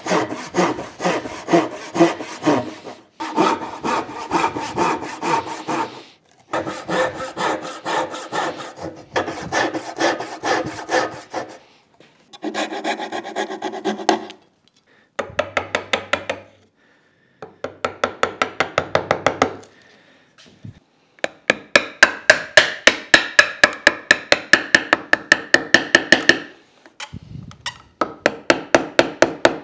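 Hand saw cutting dovetails in hardwood, a rapid run of even back-and-forth strokes. It comes in short stretches that stop suddenly; the later strokes, from about two-thirds of the way in, are sharper and come about five a second.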